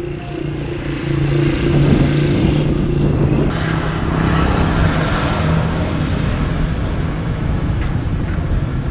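A motor vehicle engine running steadily, its pitch rising a little about a second in, with a rushing noise added from about three and a half seconds in.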